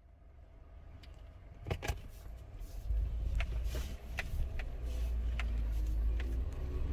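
Suzuki Jimny driving: a low engine and road rumble that fades in and grows heavier about three seconds in, with scattered knocks and rattles over it.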